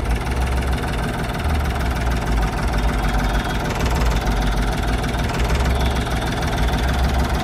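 Ford 3600 tractor's engine running steadily at a low idle, a continuous low rumble through its tall exhaust stack.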